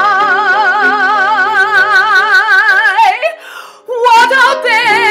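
A woman singing in a trained musical-theatre style holds a long high note with wide vibrato over sustained piano notes. About three seconds in she breaks off briefly for a breath, then comes back in on another held vibrato note.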